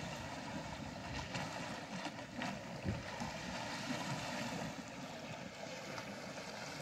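Wind buffeting the microphone with an uneven low rumble over a steady wash of river water.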